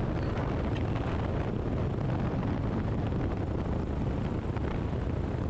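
Steady rush of wind and engine noise from a small airplane rolling fast along the runway after landing, taken by a camera mounted outside on the plane's tail so the wind buffets the microphone.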